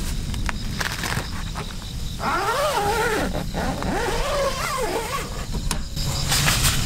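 Wind buffeting the microphone in a steady low rumble, with a wavering call that slides up and down in pitch for about three seconds in the middle.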